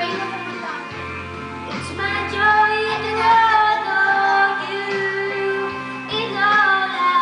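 A boy singing a slow song into a microphone over an instrumental backing track, holding long notes.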